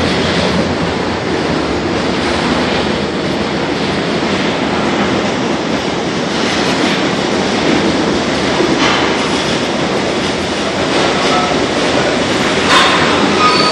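New York City subway trains running through an underground station: a steady, loud rumble of steel wheels on rails. Near the end a louder, higher-pitched burst comes in as a stainless-steel R32 car passes close by.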